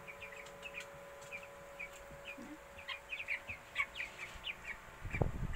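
Fourteen-day-old broiler chicks peeping: many short, high chirps, growing busier after the first couple of seconds. Near the end come a few low knocks.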